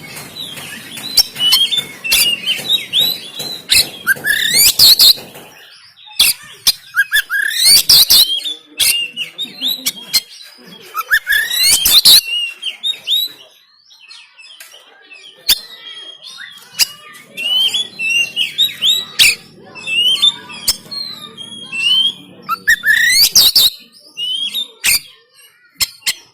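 Oriental magpie-robin (kacer) singing loudly, a varied run of quick rising and falling whistled notes. Every few seconds the song breaks into harsh, rasping bursts: the aggressive 'tembakan kasar' (rough shot) notes of an agitated bird.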